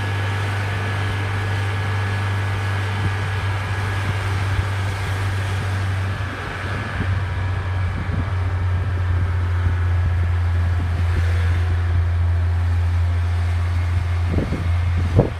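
A vehicle engine running steadily: a low, even hum with a few faint steady higher tones over it. Near the end, irregular buffeting on the microphone.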